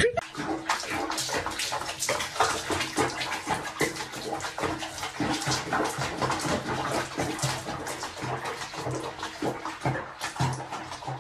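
Bathwater splashing and sloshing in a foam-filled sink as a cat is bathed, a busy, irregular stream of small splashes.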